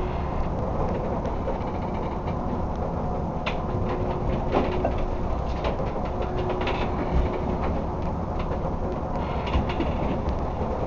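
Steady low rumble aboard a crab boat in a 70–80 knot storm, with scattered knocks and rattles and a faint steady whistle that comes and goes.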